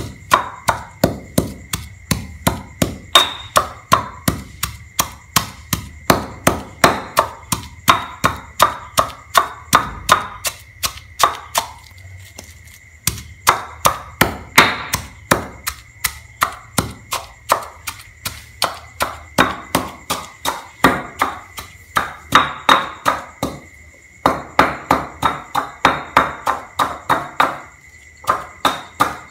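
Pestle pounding garlic, salt, sugar and green bird's-eye chilies into a paste in a stone mortar: steady strokes at about three a second, with short pauses about twelve and twenty-four seconds in.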